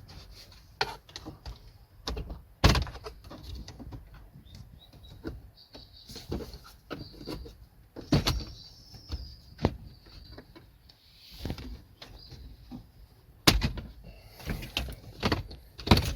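Clip-on plastic dashboard trim around a Toyota HiAce's radio being pried and worked loose: irregular clicks and knocks of plastic as the retaining clips give, with a few sharper knocks.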